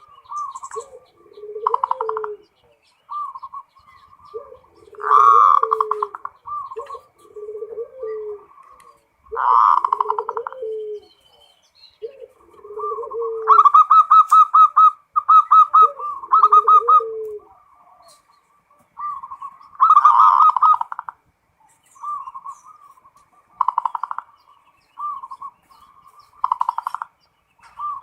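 Zebra doves (perkutut) singing: repeated cooing phrases that join low coos with higher rolling, trilled notes. The loudest is a fast run of pulsed notes about halfway through.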